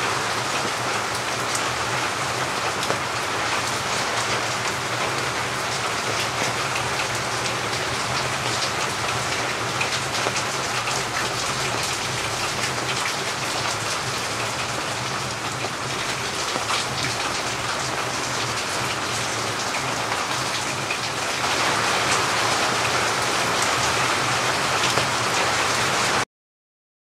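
Steady rain falling, a dense patter of many drops. It gets a little louder about three-quarters of the way through and then stops abruptly.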